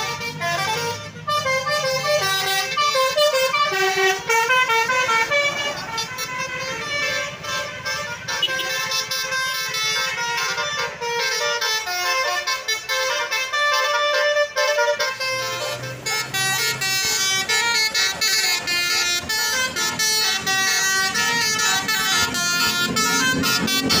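Indonesian "telolet" horns on intercity coaches playing fast runs of short stepped tones, one melodic horn sequence after another, with bus engines running underneath.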